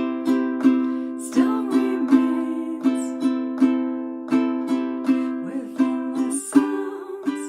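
Ukulele strummed slowly in a straight, unswung down-down-up rhythm, each stroke ringing on into the next, with a chord change about six and a half seconds in.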